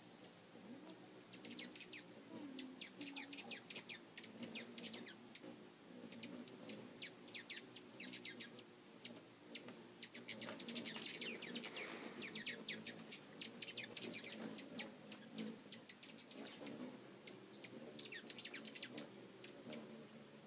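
Hummingbirds chattering at a feeder: rapid runs of sharp, high-pitched chips in repeated bursts, busiest around the middle, the squabbling calls of birds chasing each other off the feeder.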